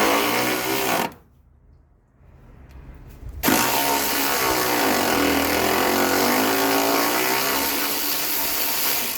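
Cordless electric ratchet running in two bursts: a short one of about a second at the start, then a long run from about three and a half seconds in, its motor pitch sagging under load and picking up again. It is working a rusted, dry suspension bolt back and forth to free it.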